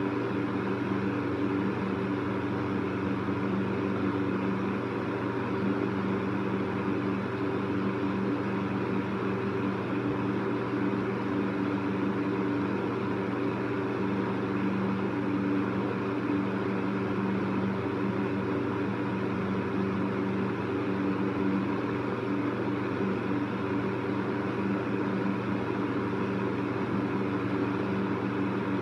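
Electric fan running steadily: an even whooshing whir over a low motor hum of several steady tones.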